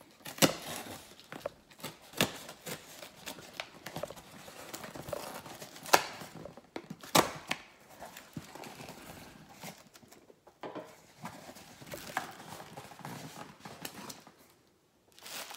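Cardboard shipping box being opened by hand: tape tearing and cardboard rustling and scraping, with several sharp clicks and knocks at irregular intervals.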